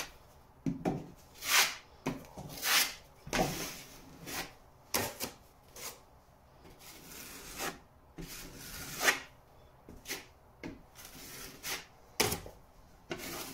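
Filling knife scraping wet plaster filler across a plasterboard patch in a string of short strokes, about one a second with a quieter pause midway: the first coat being spread.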